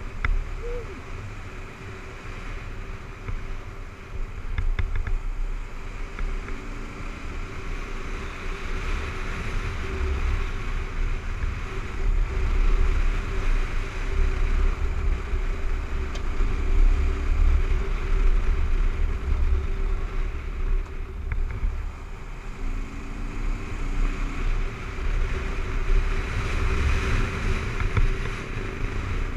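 Kawasaki KLR 650's single-cylinder engine running steadily under way on a dirt road, with low rumble of wind on the helmet-mounted microphone; it gets gradually louder as the bike picks up speed.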